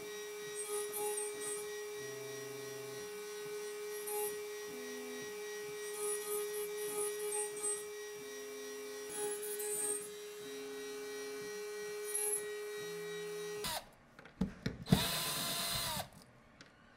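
Small CNC router spindle whining steadily while an end mill takes a fast facing pass on a brass part, with short high-pitched cutting bursts and brief low hums coming and going. Near the end the sound cuts, and a cordless drill runs briefly, spinning up and then down.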